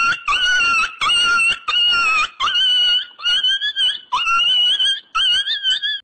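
Comedy meme sound effect: a run of about eight high-pitched squeals in quick succession, each under a second long, with a short gap between them.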